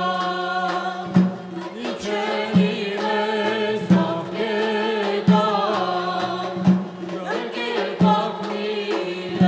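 Armenian folk ensemble performing a song: a woman's voice leads the melody over a steady low drone, with a drum struck on a slow, even beat about every second and a half.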